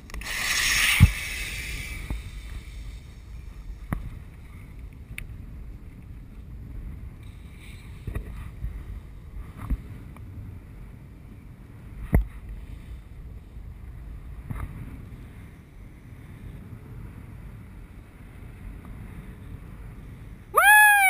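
Wind rushing over the camera's microphone while descending under a parachute canopy, a low steady rush with a gust and a thump about a second in and a few scattered knocks. Near the end a loud call cuts in, sliding down in pitch.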